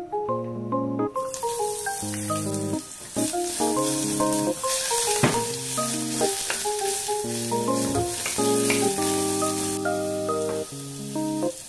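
Minced aromatics sizzling in hot oil in a saucepan, stirred with a wooden spatula; the sizzle starts about a second in, as they hit the pan, and eases near the end. Light mallet-percussion background music plays throughout.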